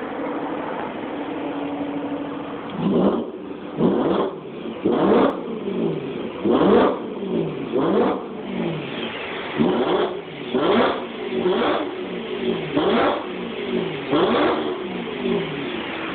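Car engine idling through a Riss Racing axle-back exhaust with RPI off-road pipes, then blipped about ten times, roughly once a second, each rev rising sharply and falling back to idle before it settles to idle again near the end.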